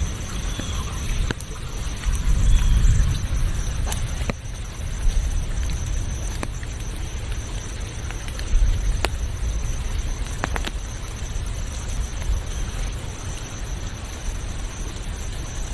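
Outdoor nature ambience: an uneven low rumble that swells and eases, under a steady high-pitched drone, with scattered sharp clicks.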